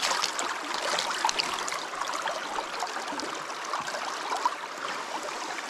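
Shallow river current rippling over rocks, with light splashing as a pike is held and swished in the water by hand for release.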